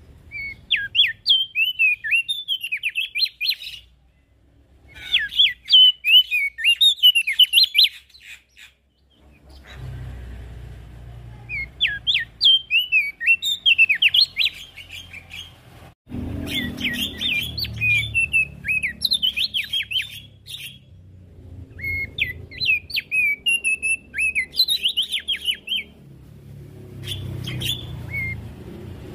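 Opior jambul (Javan grey-throated white-eye) singing in bursts of fast, chattering twitters, each phrase about three seconds long, six phrases with short pauses between them.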